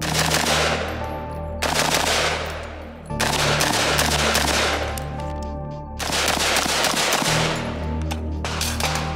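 Taiwanese T65 5.56 mm rifle firing rapid shots in four strings, the first three about a second and a half apart and the last about three seconds later, each trailing off in echo; a few single shots follow near the end.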